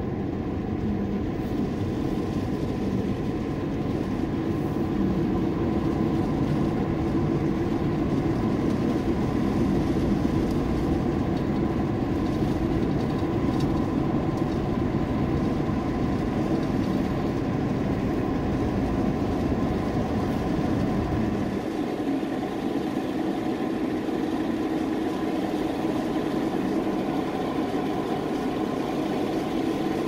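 Steady road noise heard from inside a moving car: engine and tyre drone with a faint steady whine. The low rumble thins out about two-thirds of the way through.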